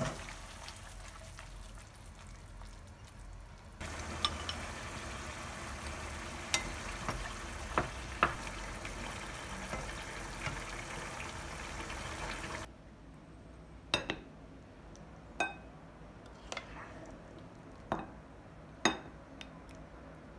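Mapo tofu sauce simmering in a frying pan while a wooden spoon stirs it and knocks against the pan. About two-thirds of the way in it cuts to a quieter run of five or six sharp knocks of the wooden spoon on a ceramic plate as the tofu is dished out.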